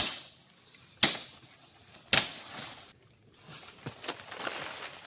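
Three sharp knocks about a second apart, each trailing off in a rustle, followed by a couple of seconds of rustling with small ticks.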